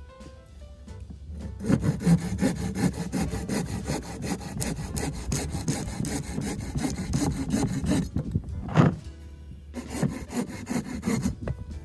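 Folding hand saw cutting through a piece of firewood in quick back-and-forth strokes, starting about a second and a half in. The sawing breaks off briefly with a single loud knock, then resumes.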